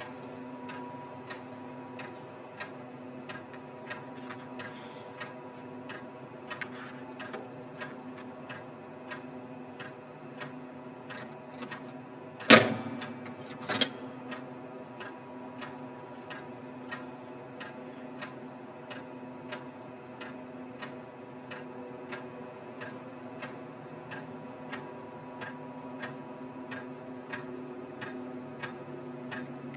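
Pendulum-driven mechanical time clock (Stempeluhr) ticking steadily, a little more than once a second. About twelve seconds in, the lever is pulled to stamp the time card: a loud metallic clunk that rings briefly, then a second, softer clunk about a second later.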